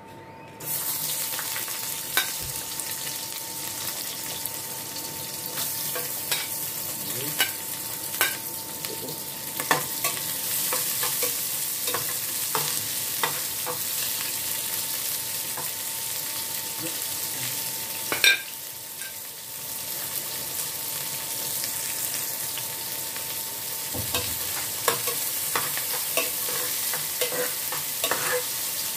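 Sliced onions and ginger sizzling in hot oil in an aluminium pot, the sizzle starting suddenly as they are tipped in under a second in. A metal spoon stirs them, clicking and scraping against the pot, with one louder clack past the middle.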